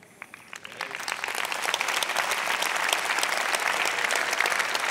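Congregation applauding: a few scattered claps, building within about a second into steady clapping.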